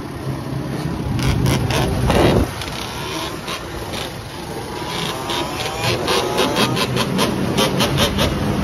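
Yamaha Blaster quad's two-stroke single-cylinder engine, bored out to 260cc, revving hard on the throttle through a wheelie, with a loud surge about two seconds in and the revs rising and falling in the second half.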